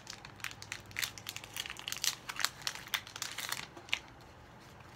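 Foil wrapper of a Pokémon booster pack crinkling and crackling as it is handled and torn open, a quick run of crackles that stops about four seconds in.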